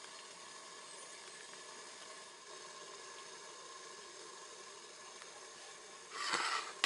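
Faint steady hiss of a Moulinex Cook4Me multicooker steaming as it heats during its browning self-test, with the bottom sensor at 100 °C. A short rustle about six seconds in, then a sharp click at the very end.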